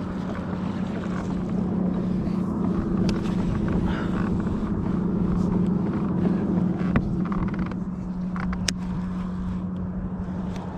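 A boat motor running with a steady low drone that eases slightly near the end, with a few light clicks in the second half.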